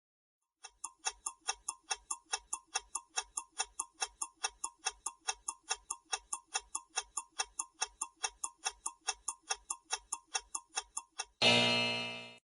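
Countdown-timer sound effect: a clock ticking evenly, about three ticks a second, for the ten seconds allowed to answer. It ends in a loud pitched tone that fades over about a second and marks time up.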